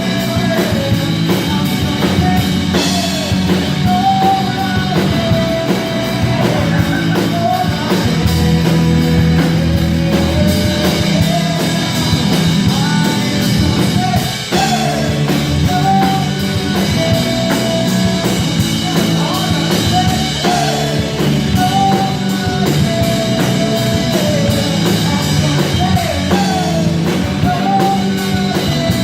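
A rock band playing together on drum kit and guitar during a sound check, with a repeating melody that bends in pitch over a steady beat.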